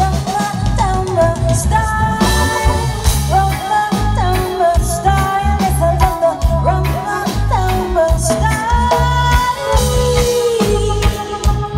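Live reggae band playing, with a woman singing over a heavy, repeating bass line and drums.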